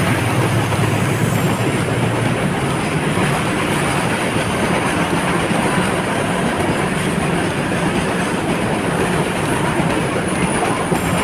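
Freight train of covered goods wagons rolling past at close range: a steady, loud noise of steel wheels on rail. A low drone fades away in the first two seconds.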